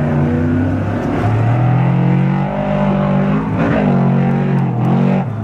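Trophy truck's V8 engine at racing speed, its note dipping and climbing again a few times as the throttle is lifted and reapplied through the corners.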